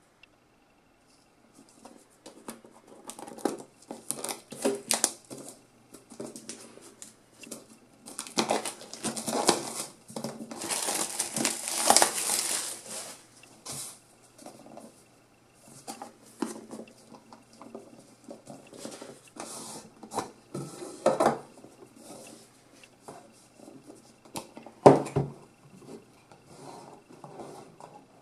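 Headphone retail packaging being unwrapped and opened by hand: bouts of crinkling plastic wrap and rustling, rubbing cardboard, with a longer unbroken stretch of crackling in the middle. One sharp knock comes near the end.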